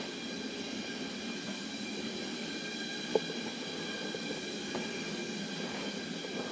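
Steady background hum with faint high steady tones running through it, and a small click about three seconds in.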